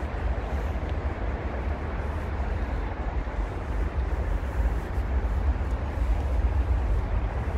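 Wind buffeting the microphone of a handheld camera outdoors: a steady, gusty low rumble with a fainter hiss above it.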